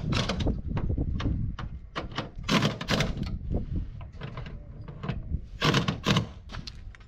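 Irregular clicks, knocks and rattles of a hard plastic cab side panel being handled and offered up against a truck cab, with louder clusters of knocks about two and a half seconds and six seconds in.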